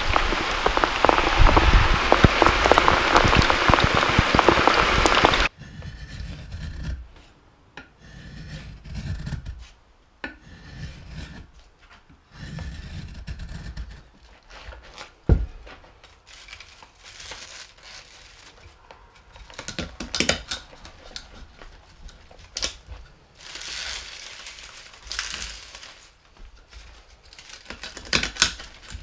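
Steady rain splashing onto the water in a full rain barrel, which cuts off suddenly about five seconds in. After that comes quiet, intermittent scraping and rubbing of a knife shaving curls off a piece of firewood, with one sharp knock in the middle.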